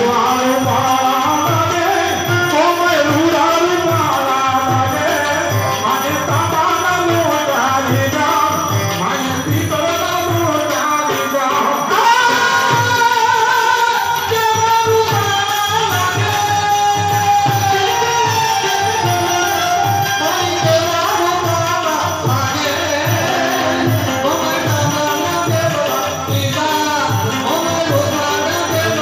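Live Gujarati devotional folk music over a sound system: a man singing into a microphone with harmonium, a steady drum beat and jingling hand percussion.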